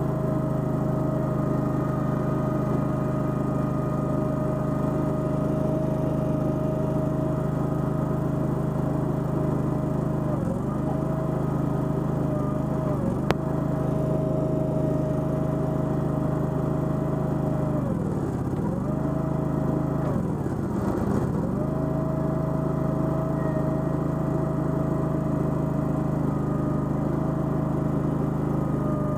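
Toro Dingo mini skid steer's gasoline engine running steadily at working speed, its note sagging briefly a few times and more deeply twice in the later half as the hydraulics take load while the grapple handles logs. A single sharp click about halfway through.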